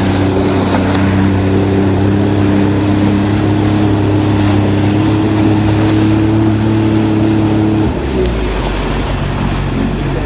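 Jet ski engine running steadily at speed, a loud even drone over the rush of water. About eight seconds in the engine note drops suddenly to a lower, rougher sound.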